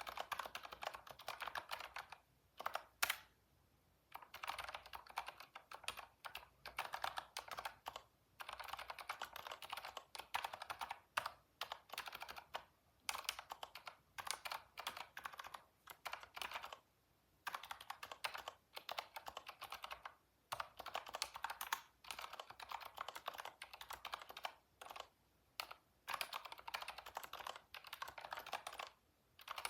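Computer keyboard typing in quick runs of keystrokes broken by short pauses, with one louder click about three seconds in.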